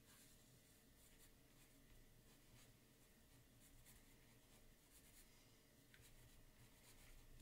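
Faint scratching of a 2B graphite sketching pencil drawing short, uneven strokes on smooth marker paper.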